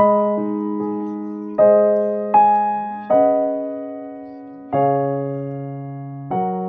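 Background music on a piano-like keyboard: slow notes and chords, a new one struck every second or so and each left to ring and fade.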